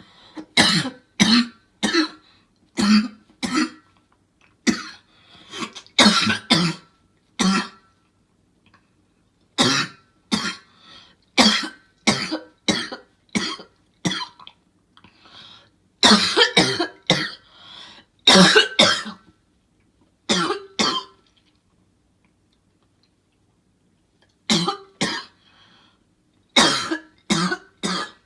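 A person coughing over and over in four bouts of several quick coughs each, with short breaks between bouts and a longer break a little before the end.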